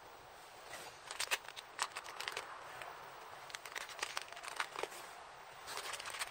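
Clear plastic bag of mushroom spawn plugs crinkling and rustling in gloved hands: an irregular run of short, sharp crackles.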